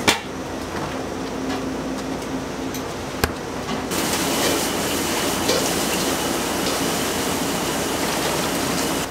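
Kitchen pot-and-tray sounds: a sharp metal clank at the start and another knock about three seconds in, then from about four seconds a steady hiss from the stockpot of chashu braising liquid on its burner while steel tongs move the pork rolls.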